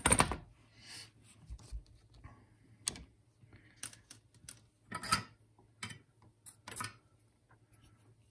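Scattered clicks and knocks of a coax cable with a metal PL259 connector being turned and set into a pair of steel slip-joint pliers, the loudest right at the start and about five seconds in.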